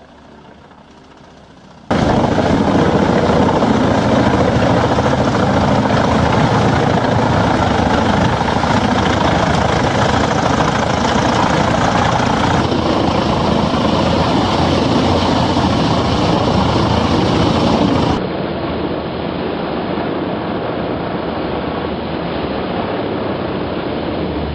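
Heavy HD810 wood-chipping machine running loud and steady, a dense mechanical din that starts suddenly about two seconds in and changes character abruptly twice later on.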